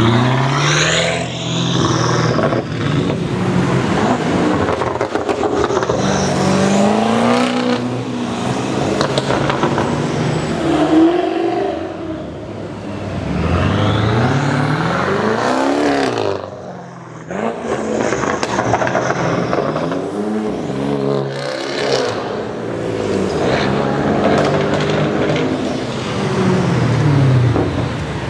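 Prior Design widebody BMW M6 revving and accelerating in several pulls. The engine pitch climbs and falls again and again, with a short lull about two-thirds of the way through.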